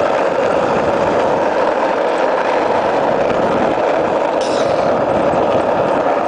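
Skateboard wheels rolling fast over asphalt, a loud, steady rolling noise as the board is towed along by dogs.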